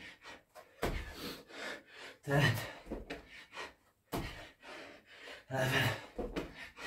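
A man's hard, voiced exhales of effort, each with a thud, coming about every second and a half. These are the sounds of reps in a set of burpees and thrusters with two 16 kg kettlebells.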